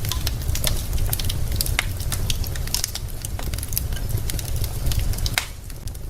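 Wood fire in a fireplace crackling, with frequent sharp pops and snaps of burning logs at irregular intervals over a steady low rumble.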